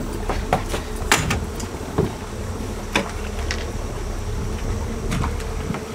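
Boat engine running steadily with a low hum, with several short sharp clicks and knocks scattered through from handling gear on the deck.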